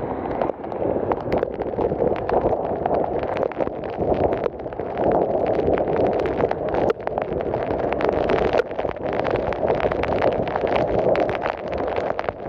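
Heavy rain in strong wind: a loud, dense, continuous patter of drops with many sharp individual hits.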